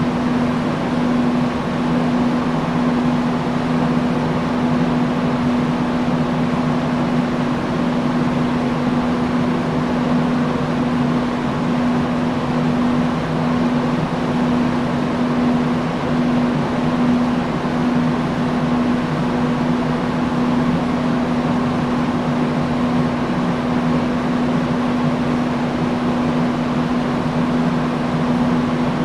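Industrial fan running steadily: an even rush of moving air over a constant low motor hum, unchanging throughout.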